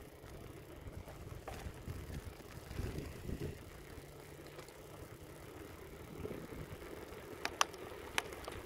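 Genesis V2100 mountain bike being ridden: a low, steady rumble of riding with light rattling. A few sharp clicks near the end come from the gears being shifted.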